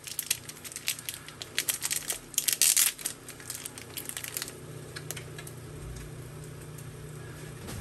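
Foil trading-card pack wrapper crinkling as cards are handled: a flurry of sharp crackles over the first few seconds, thickest near the middle, dying away to a steady low hum.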